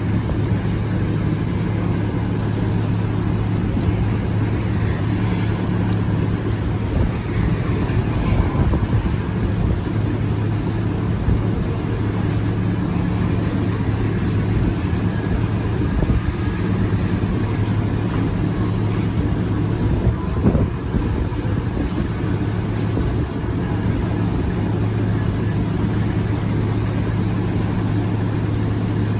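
Kubota rice combine harvester running steadily: a constant low engine hum with mechanical rattle and noise, the level barely changing throughout.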